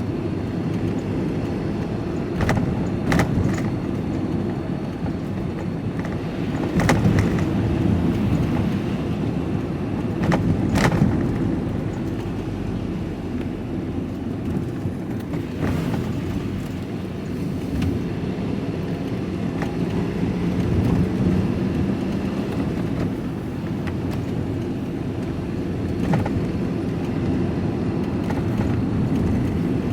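Van cab noise while driving: a steady low engine and road rumble, with a few short knocks and rattles.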